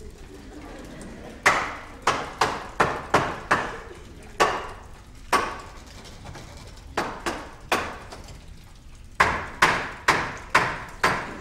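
Sharp knocking, about eighteen knocks in irregular runs: a quick run of five or six, two single knocks, three more, then a fast run of seven near the end. Each knock rings briefly.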